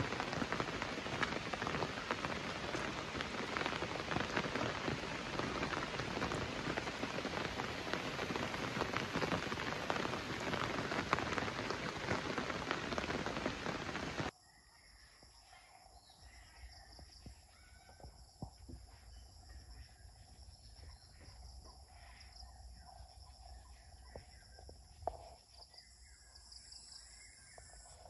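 Heavy rain falling steadily, a dense hiss of drops on surfaces, which cuts off suddenly about halfway through. It gives way to a much quieter chorus of insects chirring in steady high tones, with a few scattered clicks and calls.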